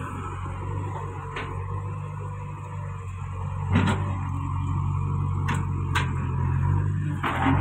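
JCB backhoe loader's diesel engine running steadily while its rear bucket digs in a pit of earth, with a few sharp knocks scattered through.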